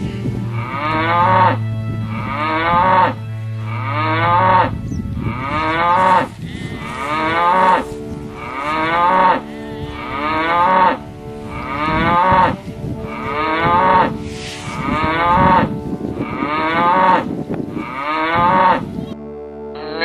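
Cows mooing over and over in an even rhythm, about one moo every second and a half. Each moo swells in loudness and then breaks off sharply, over a low steady drone.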